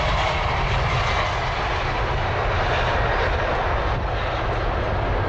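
Jet aircraft engine noise, a steady rush over a low rumble.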